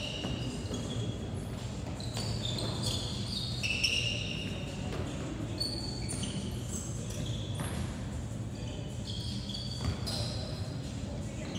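Basketball dribbled on a hardwood gym floor, with many short, high sneaker squeaks as players cut and stop, in a large gym.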